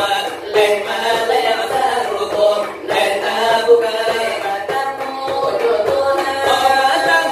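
Selawat dulang: Minangkabau devotional singing, voices chanting Islamic verses in a melismatic line over a beat tapped with the fingers on a large brass tray (dulang).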